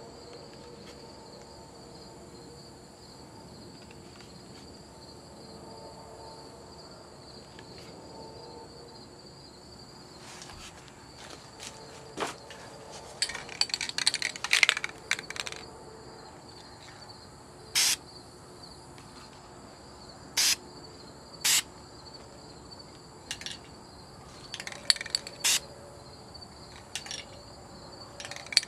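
Steady, high-pitched chirring of insects throughout. From about ten seconds in it is broken by scattered sharp clicks and knocks, densest a few seconds later, from objects being handled.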